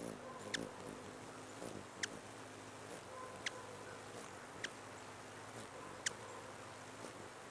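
A bird giving short, high, sharp chip calls, one about every second and a half, five in all, over a faint background hiss.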